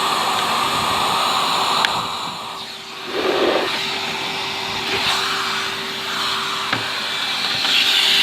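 Henry canister vacuum cleaner running with a steady motor hum and rushing suction noise as its nozzle is worked over dusty vacuum parts; the suction sound drops and surges back about three seconds in as the nozzle is moved, with a couple of sharp clicks.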